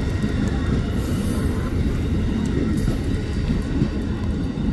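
Amtrak passenger cars rolling past close by: a steady low rumble of steel wheels on the rails, with faint light clicks over it.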